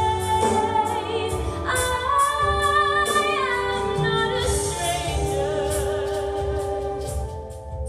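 A woman singing a slow musical-theatre solo ballad with instrumental accompaniment, holding long notes with vibrato. The music softens near the end.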